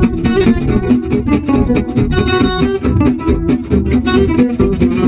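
Instrumental background music: guitar, plucked and strummed at a steady lively pace.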